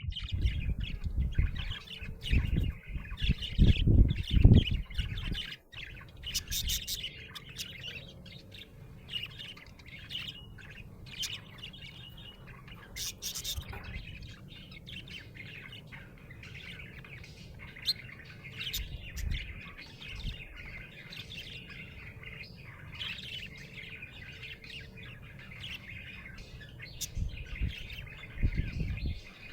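Budgerigar chirping and chattering continuously, with scattered sharper chirps. Loud low rumbling bumps in the first few seconds and again near the end.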